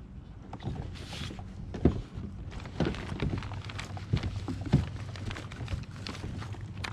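A drink being opened with a short fizzing hiss about a second in, followed by several scattered knocks and thumps of things being handled in a boat, over a low steady hum.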